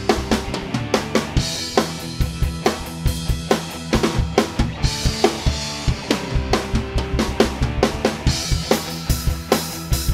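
Acoustic drum kit played in a steady beat, kick and snare hits with cymbals washing over them, along to recorded music with pitched parts underneath.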